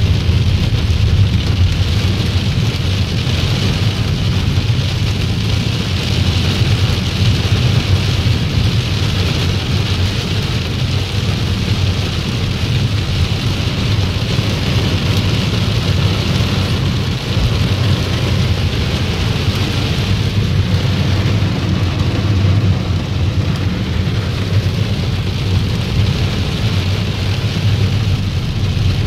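Torrential rain falling hard and steadily on a car's roof and windscreen, heard inside the cabin, over a steady low rumble of the car's engine and tyres on the wet road.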